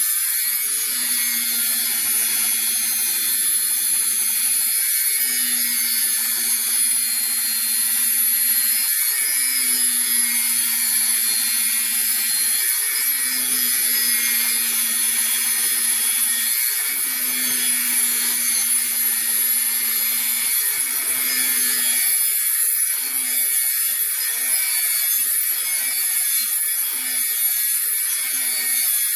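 Angle grinder grinding the end of a metal pipe clamped in a vise, preparing the edge for welding. A steady, high-pitched grinding hiss with a low hum underneath that drops out briefly about every four seconds and turns choppy near the end.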